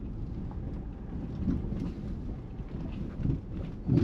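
Hyundai ix35 SUV on the road, heard from inside the cabin: a steady low rumble of road and engine noise with a few soft bumps. The rear suspension has just had new bushings, and the knocking over bumps is gone; what remains is the car's normal running noise.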